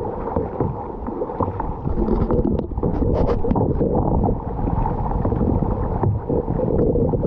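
Water splashing and sloshing around a kayak being paddled, under a steady rumble of wind on the microphone, with a few brief sharp clicks about three seconds in.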